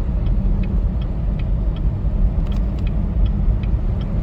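In-cabin drive noise of a 2018 Chevrolet Camaro ZL1: a steady low rumble from its supercharged V8 and the tyres on a snow-covered road.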